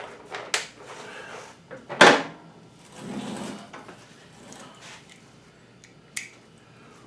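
Clicks, knocks and clunks of motorcycle parts and hand tools being handled during work at the rear of the bike, with one loud clunk about two seconds in and a brief scraping rustle just after.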